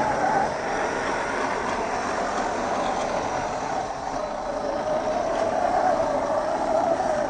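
1/10-scale RC crawler's electric motor and geartrain whining as it drives, the pitch wavering up and down with the throttle over rumbling drivetrain and tyre noise.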